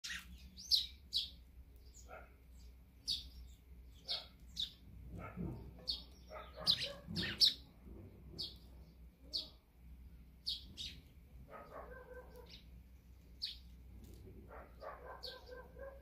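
Eurasian tree sparrows chirping at a seed feeder: short, sharp chirps one or two a second, with a few lower, rougher calls in the middle and near the end.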